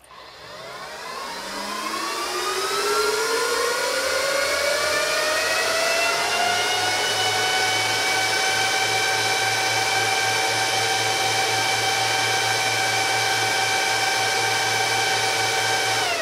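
Cooling fans of a Canaan Avalon A1166 Pro Bitcoin miner spinning up at power-on: a rising whine that climbs for about seven seconds, then levels off and runs steadily at full speed over a low hum. The miner starts without blowing its fuse, a sign that the capacitor repair has worked.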